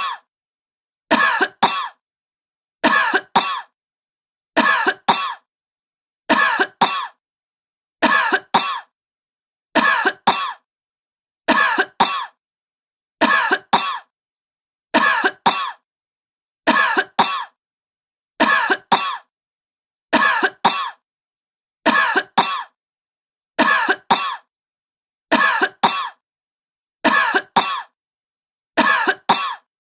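A sick woman coughing: two quick coughs close together, repeating about every second and three-quarters in an unchanging rhythm, with silence between the pairs.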